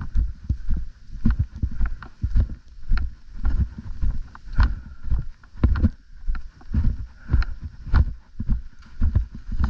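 Irregular dull thumps and knocks, one or two strong ones a second, with rustling between.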